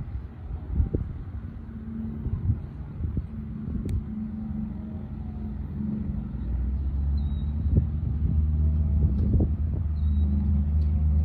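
Cessna 152's four-cylinder Lycoming engine and propeller at taxi power: a steady low drone that grows louder over the second half as the plane turns toward the listener.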